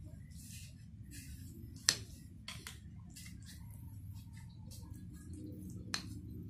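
A metal spoon scooping rice porridge from a ceramic plate, with one sharp clink of spoon on plate about two seconds in and a softer one near the end, amid soft wet eating and mouth sounds over a low steady hum.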